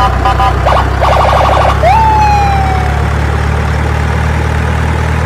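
Fire engine sound effect: a steady low engine rumble under a run of rapid electronic beeps, then about two seconds in a single siren wail that sweeps up and slowly falls away.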